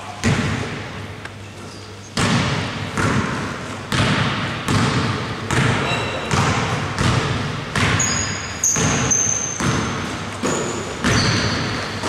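A basketball being dribbled on the wooden floor of a gymnasium, a steady bounce a little more than once a second, each bounce echoing in the hall. Short high sneaker squeaks join in the last few seconds.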